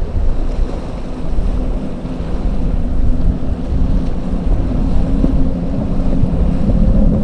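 Boat engine running with a steady hum under heavy wind buffeting on the microphone and the wash of rough water. The engine tone grows a little louder toward the end.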